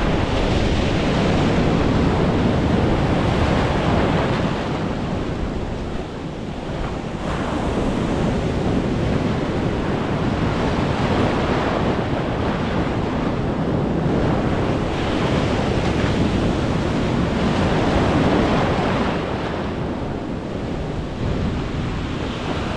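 Ocean surf breaking and washing over the shallows: a continuous loud rush of water that swells and eases as the waves come in and draw back.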